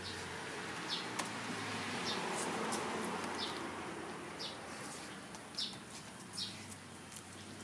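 Small Jack Russell–Shih Tzu cross dog eating raw fish: irregular wet chewing clicks and smacks, with short high chirps repeating about once a second over them.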